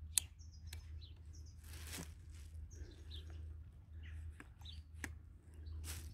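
A sharp click about a quarter of a second in, as the pit bike's ignition key is turned, followed by a few fainter clicks and handling knocks, with small birds chirping in the background.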